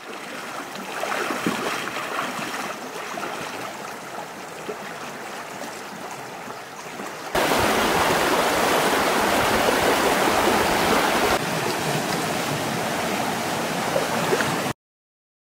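Shallow mountain stream rushing over rocks, a steady wash of water. It gets suddenly louder about halfway through, eases a little a few seconds later, and cuts off abruptly just before the end.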